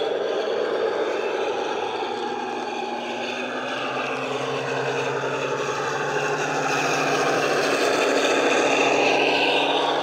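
Sound-fitted OO gauge model of a Class 52 Western diesel-hydraulic: its ESU decoder plays the SWD sound file of the twin Maybach engines through an EM1 speaker as the model runs by. The engine note shifts up and down in pitch and grows louder as the locomotive passes close near the end.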